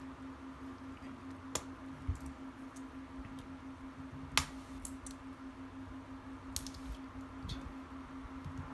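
A few sharp plastic clicks, the loudest about four and a half seconds in, as a Topre key slider is pushed with a card through the retaining tabs of a keyboard's steel plate, over a steady low hum.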